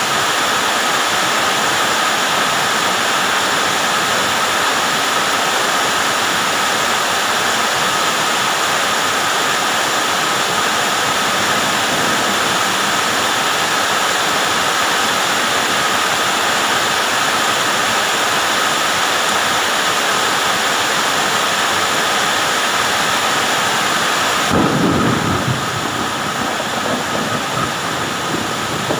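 Heavy rain pouring steadily, an even hiss of water. About 25 seconds in there is a brief low rumble, and then the rain sounds slightly quieter and duller.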